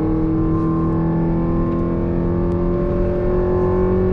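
Mazda NB Roadster's inline-four engine pulling under throttle on a race track, heard from inside the cabin; its note climbs slowly and steadily without a gear change.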